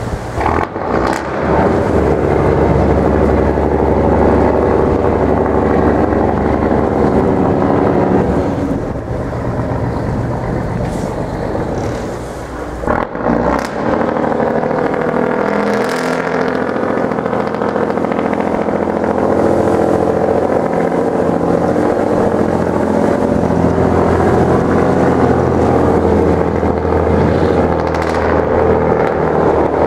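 Diesel engine of a small icebreaking tug running steadily as it works through broken river ice, with the sound sweeping in pitch about halfway through as the boat passes close by.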